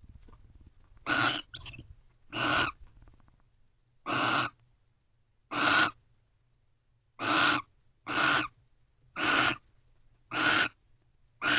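Barn owl giving a series of about ten short, harsh hissing calls, roughly one a second.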